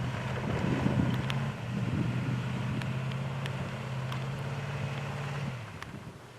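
Nissan Titan pickup's V8 engine running at a steady speed, then easing off and fading out about five and a half seconds in. Wind buffets the microphone throughout.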